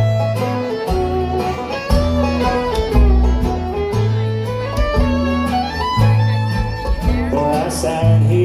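Bluegrass band playing the instrumental intro to a song: fiddle carrying a sliding melody over strummed guitar and a bass stepping between notes.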